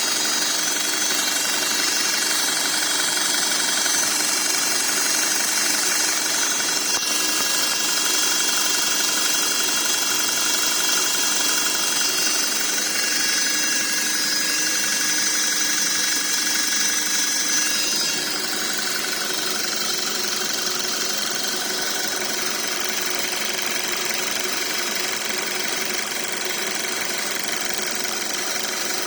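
Audi Q5 2.0-litre turbo running with a steady whine from its gearbox, the fault the car is being checked for. Several steady high tones sit over the running noise, and the sound shifts and drops a little about two-thirds of the way through.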